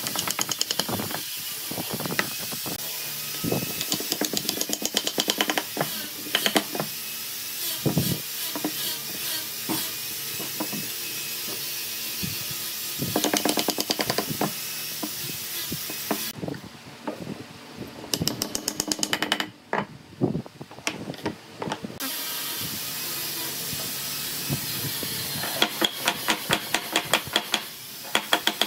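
Wooden block used as a mallet, knocking wooden dowels into holes in wooden discs: runs of sharp wooden taps, about four a second in the longest run near the end, over a steady background hiss.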